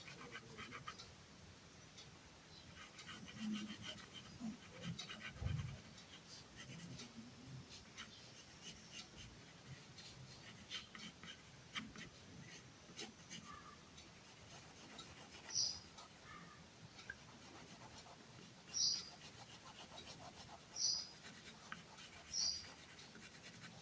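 Faint scratching of drawing strokes on paper as a small house is sketched, with light taps between strokes. A few short high chirps sound in the second half.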